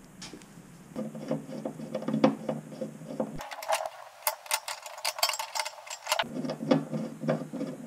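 Screwdriver and small metal fittings clicking and ticking as a windscreen washer jet is fastened under a car bonnet, with a dense run of rapid clicks in the middle.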